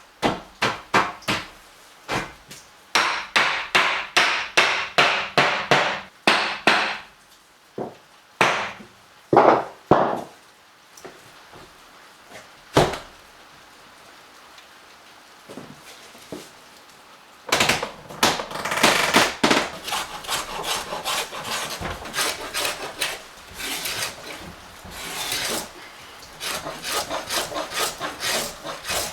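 A hand tool cutting wood in quick back-and-forth strokes, about two to three a second, in two long runs with a pause and a few single knocks between: a notch being cut or eased so the piece will fit.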